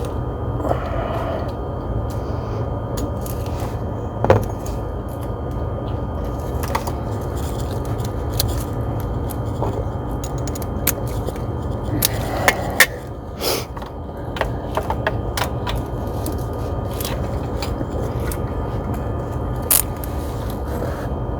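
Scattered clicks and scrapes of hand tools working a spark plug socket down into the plug well as a new spark plug is threaded in, over a steady shop hum.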